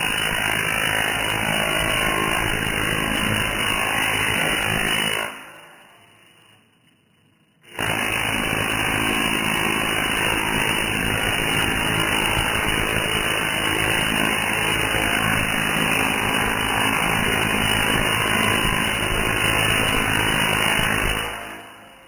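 Tesla coil firing, its arcs crackling in a loud, steady buzz as they strike out into the air and onto a nearby target. The sound dies away about five seconds in, is silent for about two seconds, starts again suddenly, and fades out just before the end.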